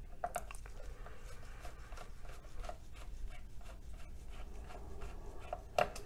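Faint, irregular clicks and scratches of a Phillips screwdriver turning a small screw out of a motherboard's M.2 heatsink, with a slightly louder click near the end.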